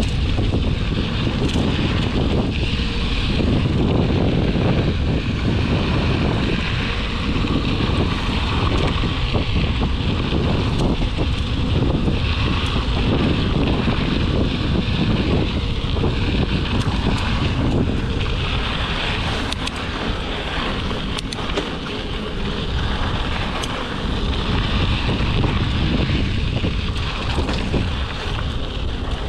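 Wind buffeting a GoPro's microphone while a mountain bike rolls along a dirt desert trail, with tyre noise and occasional clicks and rattles from the bike over bumps.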